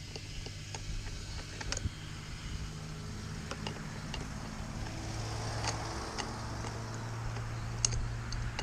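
A car driving along the street, its low engine hum growing louder through the second half. A few sharp metallic clicks from a wrench being worked on a chainsaw's bar nuts come over it, the sharpest near the end.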